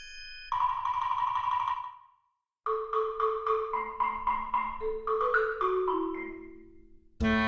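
Background music: a held chord and a buzzy tone, a brief gap about two seconds in, then a run of struck mallet-percussion notes at about three or four a second. Fuller music comes back near the end.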